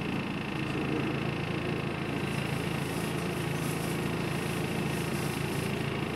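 Diesel engine and drivetrain of an open-top double-decker bus running steadily, heard from the back of the lower deck: a low drone with a faint high whine.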